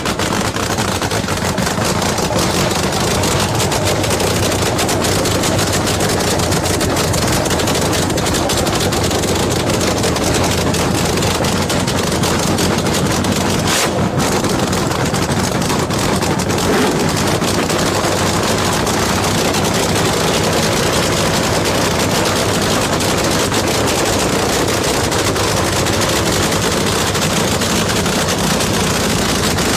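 Nitro-burning supercharged V8 funny car engines running loud, with a dense, rapid crackle of firing pulses over a low rumble. The sound breaks briefly about fourteen seconds in.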